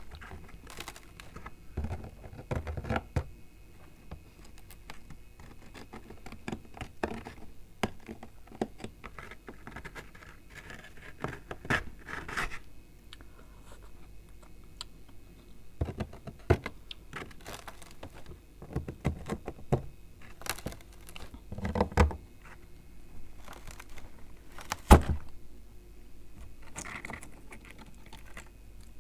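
Spoon scraping frost inside a freezer: irregular scratchy scrapes and clicks in short clusters, with a sharp knock late on that is the loudest sound.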